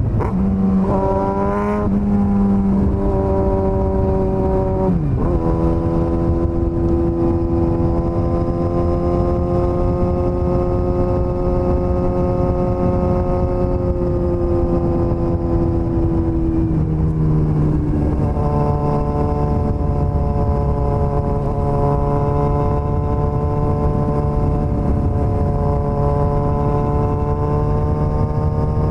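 Suzuki GSX-S1000's inline-four engine running under way, mostly at steady revs. The revs drop sharply about five seconds in and again around seventeen seconds, then hold steady at a lower pitch.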